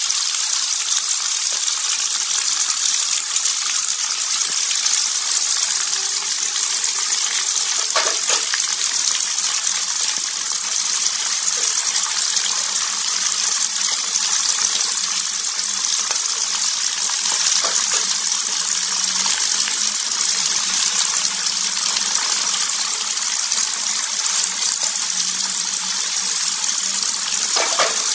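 Pieces of rohu fish frying in hot oil in a pan: a steady high sizzle, with a couple of short clicks, one about eight seconds in and one near the end.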